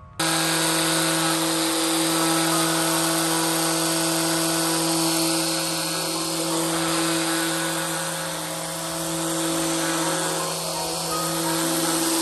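Angle grinder converted into a steel-wire grass trimmer, running steadily at full speed with a high motor whine, dipping slightly in loudness about two-thirds of the way through.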